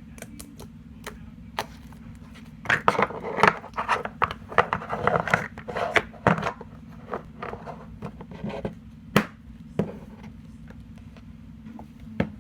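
Glossy slime being squished and stretched by hand, giving off rapid sticky clicks and pops, densest from about three to six seconds in, over a steady low hum.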